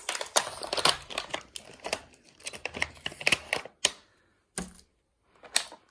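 Toy packaging being handled and unpacked: a dense run of crinkles and clicks for nearly four seconds, then a few separate rustles and taps.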